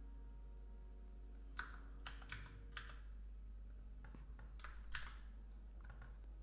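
Faint computer keyboard keystrokes, scattered: a quick group of clacks about two seconds in and another group about five seconds in, over a low steady hum.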